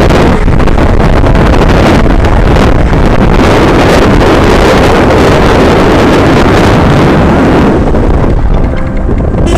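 Heavy wind buffeting the microphone over the steady rumble of a moving vehicle, easing briefly near the end.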